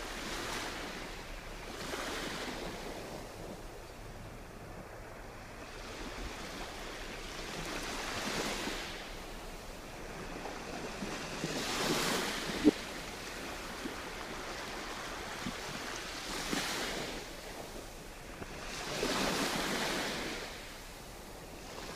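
Small waves washing in over the shore and drawing back, the rush of foamy water swelling and fading five times at uneven spacing. A single sharp click sounds just past the middle.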